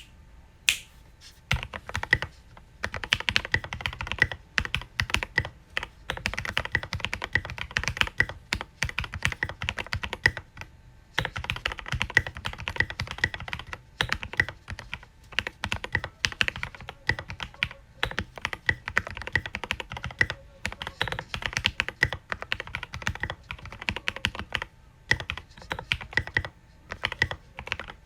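Typing on a Foxlab Key65 mechanical keyboard with lubed Cherry MX Black 63.5 g linear switches, SP SA keycaps and a polycarbonate plate: a few single keypresses, then a fast, steady run of keystroke clacks with a short pause about eleven seconds in.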